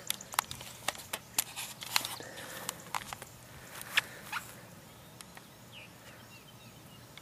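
A person walking through dry vegetation: irregular sharp clicks and crackles over the first four seconds or so, then quieter, with a few faint bird chirps.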